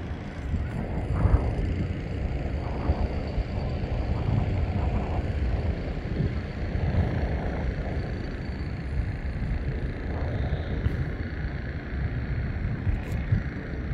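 Wind buffeting the microphone: a low, uneven rumble that swells and falls in gusts.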